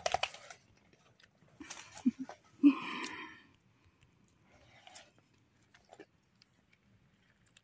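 A large chained dog shaking its head, its chain and collar rattling briefly at the start, followed about three seconds in by a short loud snort from the dog; after that only faint scattered ticks as it noses the snow.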